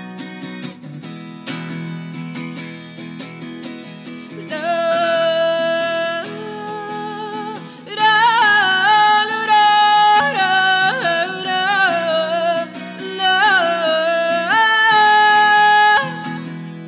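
A woman singing to her own acoustic guitar. At first the guitar plays with only a soft vocal line; her voice comes in clearly about four seconds in and gets much louder and fuller at about eight seconds, with held notes near the end.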